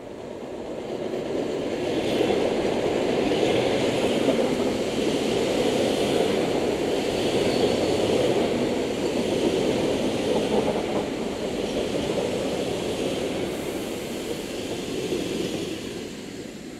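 ED4MK electric multiple unit arriving and running past close by: a steady rumble of wheels on rails that builds over the first couple of seconds, holds, and fades near the end, with a higher hiss that swells and dies away about every second and a half.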